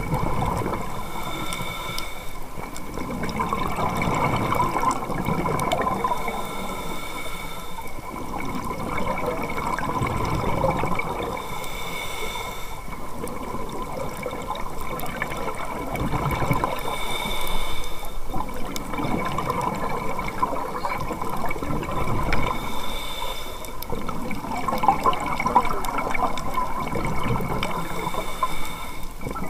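Scuba breathing through a regulator heard underwater: a short hissing inhale, then a longer rush of exhaled bubbles, repeating about every five to six seconds.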